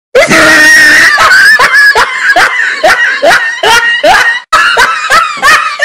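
A cartoon character's high-pitched, wordless shrieking laughter: a held shriek, then a quick run of rising cries, about two or three a second.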